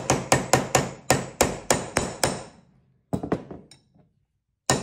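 Hammer striking a metal rivet rounding tool held over a leather rivet's clipped pin, doming the pin's end round. It is a quick run of sharp metallic taps, about four a second, then a short pause, a few lighter taps, and one more strike near the end.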